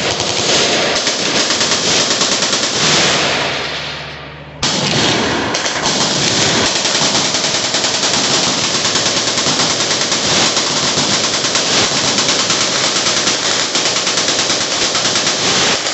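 Continuous machine-gun fire, loud and dense, in two long stretches. The first stops about four seconds in and dies away, then the fire starts up again abruptly and runs until near the end, fading out after it stops.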